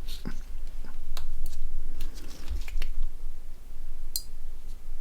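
Irregular small clicks and taps of plastic phone parts being pried and handled while a Nokia 6680 is taken apart, with one sharper click about four seconds in.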